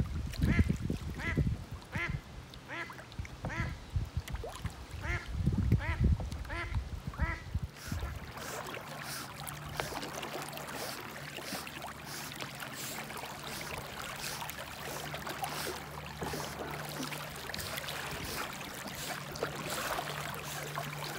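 A hen duck quacking in a quick string, about two calls a second, over low rumbles. About eight seconds in this gives way to steady water splashing and sloshing as a dog swims alongside a kayak.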